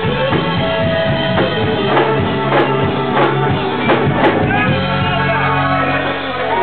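Live rock band playing with a singer: drums, guitar and bass. The drum hits drop out about two-thirds through while the band holds a steady chord.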